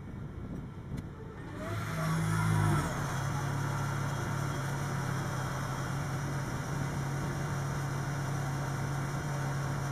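Farm tractor's diesel engine running. It comes up about a second and a half in, revs briefly just after two seconds, then holds a steady note as the tractor reverses.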